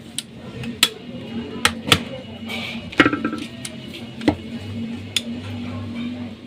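Sharp clicks and knocks of hard plastic toner-cartridge parts being handled, about seven of them at irregular intervals, over a steady low hum.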